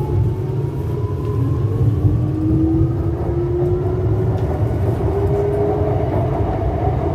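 Shanghai Metro type 09A02 electric train running at speed, heard from inside the car: a heavy steady rumble of wheels on rail, with the traction motors' whine slowly rising in pitch as the train gathers speed.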